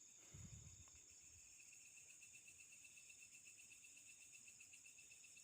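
Faint night insects: a steady high-pitched drone, joined about one and a half seconds in by a cricket chirping in a fast even pulse of about eight beats a second. There is a soft low thump near the start.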